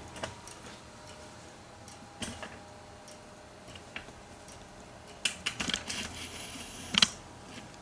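Failing hard drive making the click of death: sharp clicks repeating every second or two, with a quick flurry of several clicks past the middle and a louder one near the end. The drive has stopped transferring data.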